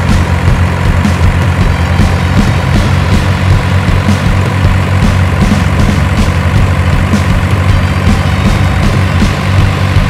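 Heavy diesel truck engine sound running steadily, a low pulsing rumble at an even level.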